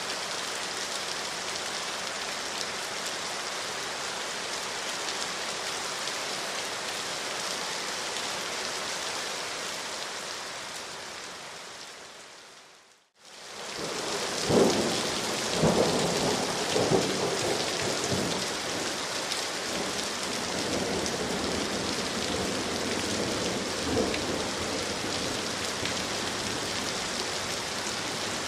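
Steady rainfall. About thirteen seconds in, it fades out to silence and fades back in, followed by several louder, irregular low thuds or rumbles over the next few seconds and once more later.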